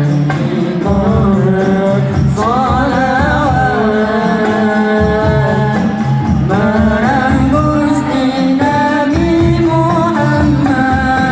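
Live group of young men singing a melody together through the stage loudspeakers, over a steady rhythmic percussion beat.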